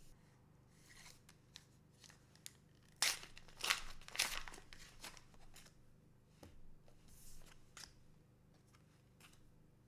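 Trading-card booster pack wrapper being torn open and crinkled, loudest in a burst of about a second and a half some three seconds in, with light handling clicks before and after.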